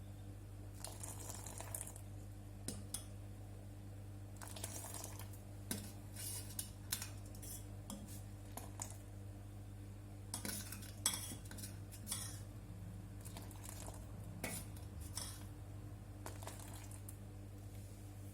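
Kitchen utensils clinking and scraping against dishes in irregular taps and short scrapes, the sharpest clink about eleven seconds in, over a steady low hum.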